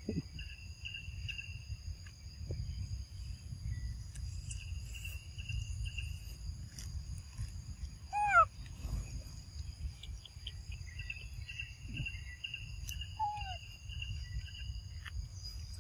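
Forest ambience: a steady high insect drone and bird chirps and trills, over a low rumble. About halfway through comes a short, loud call that falls in pitch, and a fainter falling call follows near the end.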